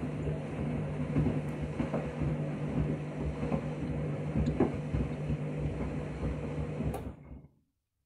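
Front-loading washing machine turning its drum during a wash with shoes inside: a steady motor hum with water sloshing and dull knocks from the tumbling shoes. Near the end the drum stops with a click and the sound dies away.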